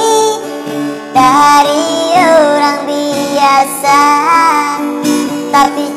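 A man singing in a high, childlike 'funny voice' over a strummed acoustic guitar, with a held melody that slides and wavers in pitch.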